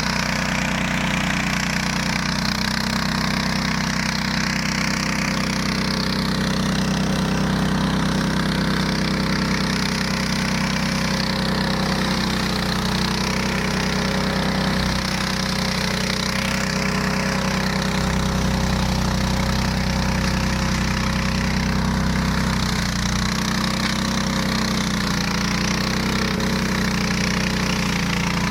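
15 hp Hyundai engine of a flail mower running steadily.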